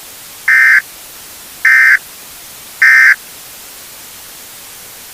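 Three short bursts of Emergency Alert System SAME digital data, the End of Message code that closes an EAS alert, each about a third of a second of harsh two-tone data sound and spaced a little over a second apart, over a steady static hiss.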